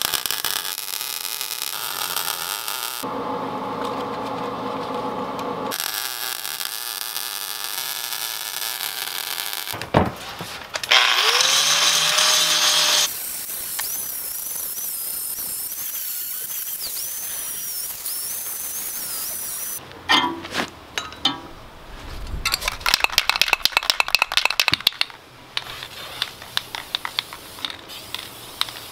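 A series of steel fabrication sounds with abrupt cuts between them: arc welding crackle, then an angle grinder cutting steel with a steady high whine. Near the end come rapid sharp metallic strikes and clicks.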